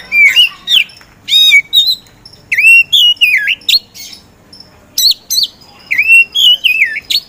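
Oriental magpie-robin of the black-bellied 'kacer poci' form singing loudly in full 'gacor' song. It gives five bursts of clear whistled phrases of sliding, looping notes, with short pauses between them.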